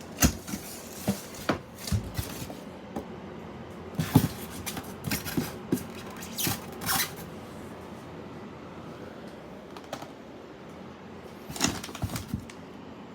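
Scattered knocks, clicks and short rustles of packaging being handled: a busy run of hits and scrapes over the first several seconds, a lull, then another cluster of knocks near the end.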